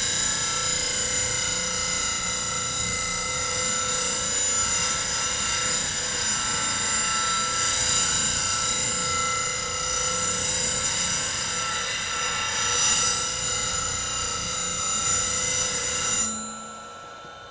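A high-speed steel bowl gouge being ground freehand against a spinning CBN grinding wheel on a bench grinder, a steady loud grinding over the motor's whine, as bulk metal is taken off the gouge's wings to shape a swept-back grind. About a second before the end the tool is lifted off, and only the grinder's running hum is left.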